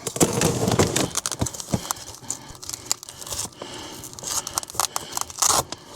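Handling of Velcro pieces and the fabric panels of an insulated delivery bag: crinkling and rustling with short tearing sounds and many small clicks.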